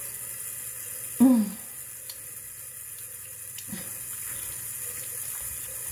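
Tap running steadily into a bathroom sink while a face is washed over it. About a second in, a short, loud voiced sound, with a fainter one later.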